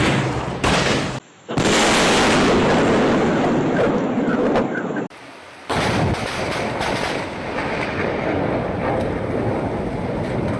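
Thunder cracking and rumbling over heavy rain, in several storm clips cut together: the sound breaks off briefly about a second in and again about five seconds in.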